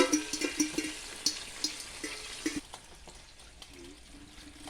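Seasoned chicken sizzling as it browns in a pot, with a spoon knocking and clinking against the pot several times while it is stirred. The sizzling and stirring die down about two and a half seconds in.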